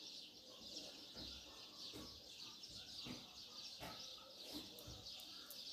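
Very faint crinkling of plastic stretch film as it is twisted and knotted by hand: a few soft crackles over a low hiss.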